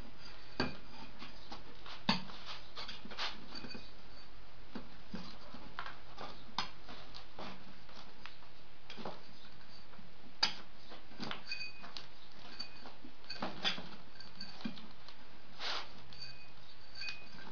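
Irregular clicks, knocks and rubbing as a rubber turf tyre and inner tube are worked by hand onto an aluminium go-kart rim, with a few short high squeaks.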